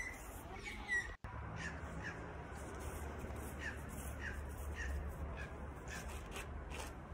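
A bird calling over and over in short, repeated calls, often about half a second apart, over a steady low rumble. The sound cuts out for an instant about a second in.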